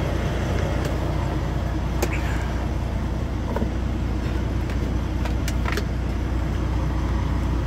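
Semi-truck cab noise while driving: the diesel engine and road make a steady low drone, with a few light clicks or rattles in the cab, one about two seconds in and two close together past the five-second mark.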